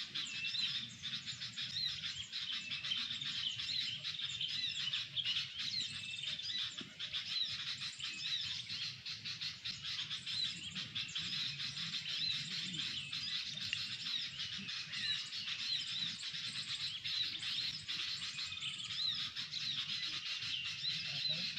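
Murai papua (saeran eod) songbird singing a rapid, unbroken run of short chirping notes, the song used to lure the bird.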